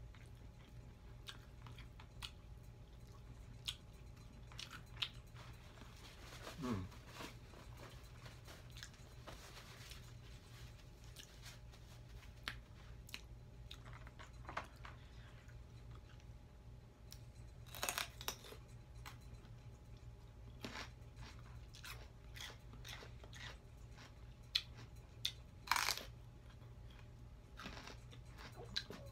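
Close-miked eating: quiet chewing and crunching of fried chicken wings and crisp vegetable sticks, with scattered mouth clicks and two louder crunches, about 18 and 26 seconds in, over a steady low hum.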